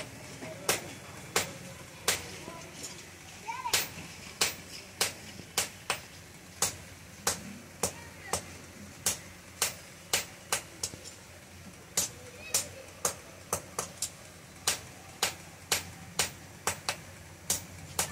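Hand hammer striking a red-hot iron bar on a steel anvil block, forging a chisel, in a steady rhythm of about two sharp ringing blows a second.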